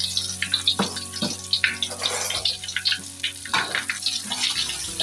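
Chopped shallots and garlic sizzling and crackling in hot oil in a wok while they are stirred with a spatula.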